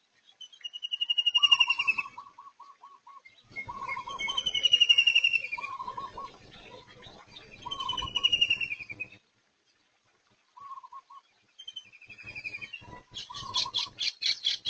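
Birds calling in repeated bouts, each a high, falling whistle over a quick run of lower notes, then a fast rattling series of notes near the end.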